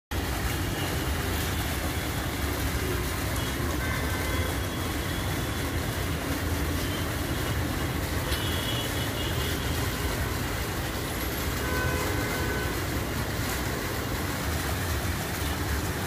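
Foam-jet fountain nozzles spraying aerated water columns that splash back into a small pool: a constant rushing, splashing noise with a deep rumble underneath.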